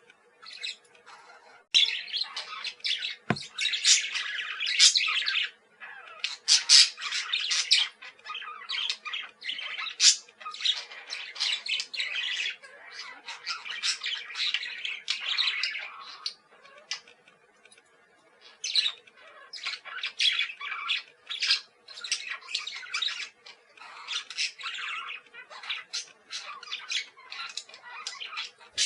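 Parakeets chattering and squawking, with fast bursts of raspy calls in clusters and a brief lull about two-thirds of the way through. A single sharp knock comes about three seconds in.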